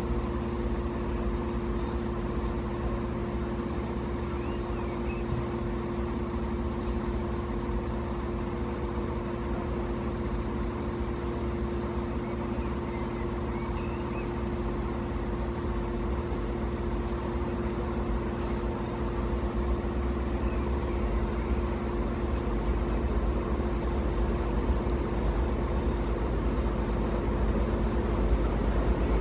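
A large vehicle engine running steadily with a low, even hum, growing a little louder near the end.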